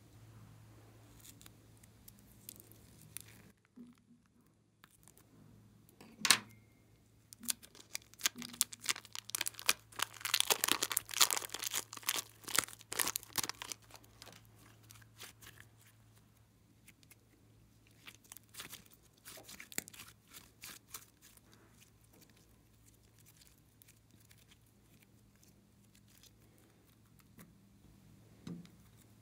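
Glossy slime being squeezed from a plastic piping bag and worked by hand, giving sticky crackling and clicking. One sharp snap comes about six seconds in, the crackling is densest from about seven to fourteen seconds, and only scattered clicks follow.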